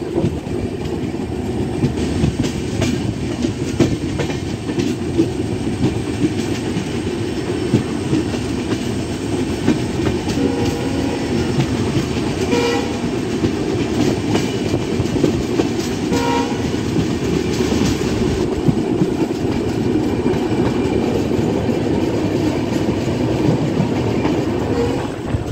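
Express passenger train running along the track, heard from the coach doorway: a steady rumble of wheels on rail with frequent clicks over the rail joints. A couple of brief pitched tones come in around the middle.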